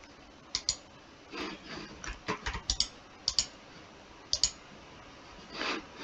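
Computer mouse and keyboard clicks: about ten sharp, short clicks scattered through, several in quick pairs, with two softer, longer rustles about a second and a half in and near the end.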